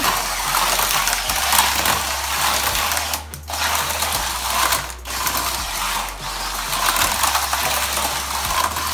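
Small electric motor of a Zoom Tubes remote-control toy car whirring and rattling as the car runs through translucent plastic tube track. The sound dips briefly twice, a little past three seconds and about five seconds in.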